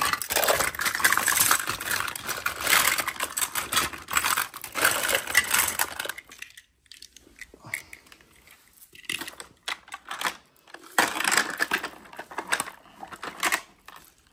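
Small hard plastic toys clattering and clicking against each other as they are handled and rummaged through. The clatter is dense for the first six seconds, thins to scattered clicks, then picks up again near the end.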